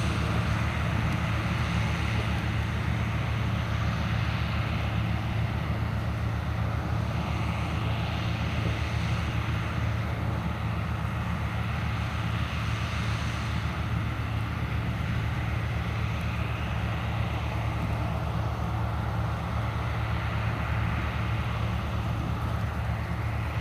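Diesel engine of heavy farm harvesting machinery running steadily under load, a constant low drone with a hiss that swells and fades every few seconds.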